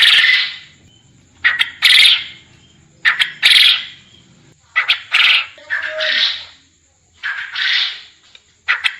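Male quail crowing over and over, about five times, roughly every one and a half seconds. Each call is a quick pair of short notes and then a longer, harsh note.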